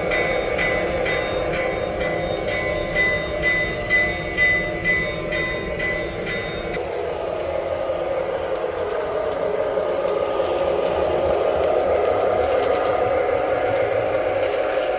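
Sound system of a Lionel O-scale diesel locomotive playing recorded locomotive sounds through its speaker: a bell ringing in a quick, even rhythm, which stops about seven seconds in, over a diesel engine drone that then rises in pitch as it revs up.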